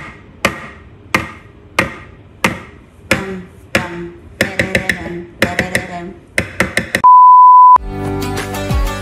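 A metal spoon knocked again and again against the rim of a plastic mixing bowl to shake off Nutella stuck to it, about one sharp knock every two-thirds of a second, then quicker clusters of knocks. About seven seconds in, a loud steady beep lasting under a second, then background music.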